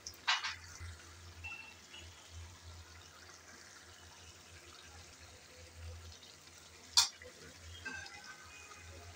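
Faint bubbling of a curry simmering in an open pan, with two short sharp clicks, one just after the start and a louder one about seven seconds in.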